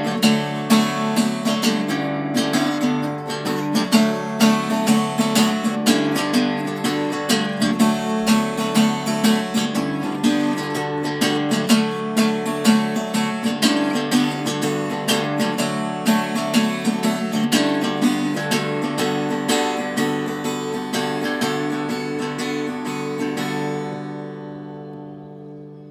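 Acoustic guitar, a Tanglewood, strummed steadily in chords with no singing. Over the last few seconds the strokes stop and the final chord dies away.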